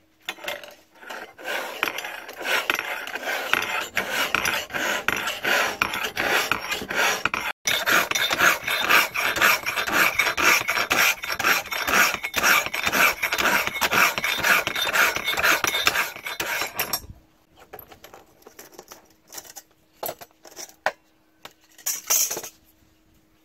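Steel hand file rasping across the edge bevel of a forged steel knife blade in fast, repeated strokes, stopping about 17 seconds in. A few scattered light knocks and scrapes follow as the blade is handled.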